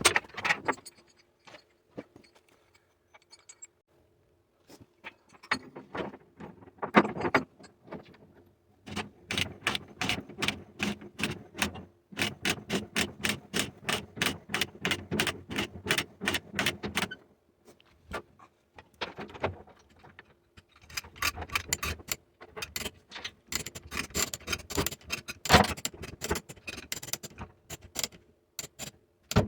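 Ratchet strap being cranked tight to pull a torn loader bucket back together: runs of evenly spaced metallic clicks, two or three a second, with pauses between runs. A steady low hum runs underneath.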